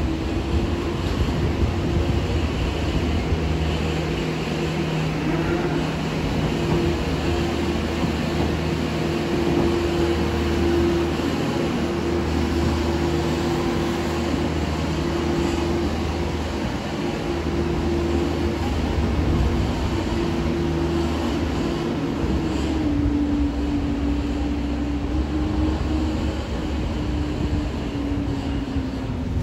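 Engine of a small articulated farm loader running steadily while it pushes manure along a concrete cowshed alley with its bucket; near the end the engine note drops a little.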